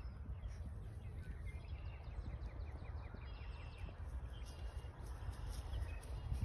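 Steady low rumble of wind on the phone's microphone, with faint bird chirps in the background.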